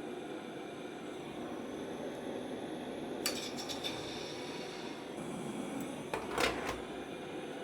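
Small steel parts clinking against metal: a few light clinks about three seconds in and a louder rattling clatter a little past six seconds, over a steady low rushing noise.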